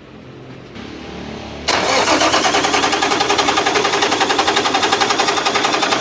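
Cummins diesel truck engine cranked briefly, then catching suddenly under two seconds in and running with an even, fast pulsing beat. The engine has low power, blamed on faulty injectors number 2 and 4.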